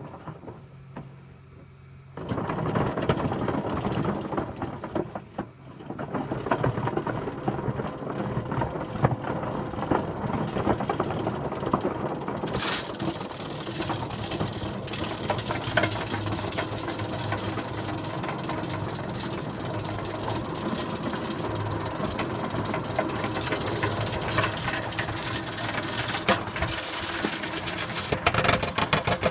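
Duct-cleaning equipment starts about two seconds in and runs steadily while a lint-clogged dryer vent is cleaned; about halfway through a louder hiss of rushing air joins it.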